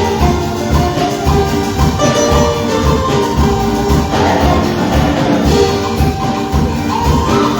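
Live praise-band music from a church group, with held instrumental tones over a steady drum beat.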